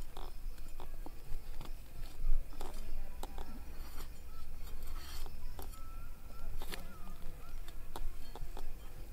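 A large knife cutting into the crisp, spice-coated skin of a spit-grilled quail, with scattered crackles and sharp taps over a low steady rumble.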